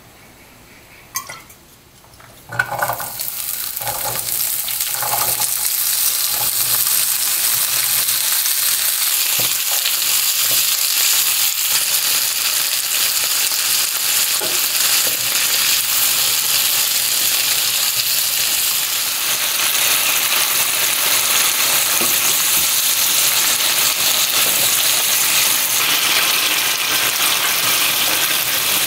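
Chopped onion, asparagus and cherry tomatoes tipped into hot oil in a nonstick frying pan, setting off a sudden loud sizzle about two and a half seconds in. The sizzle then runs steadily as the vegetables are stir-fried with a spatula.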